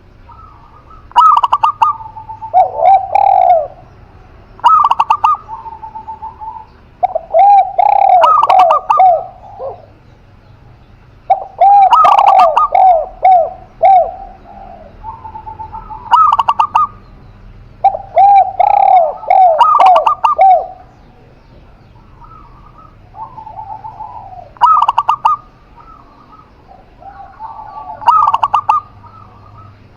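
Spotted dove and zebra dove cooing, in repeated phrases of one to three seconds each with short pauses between. Some phrases overlap.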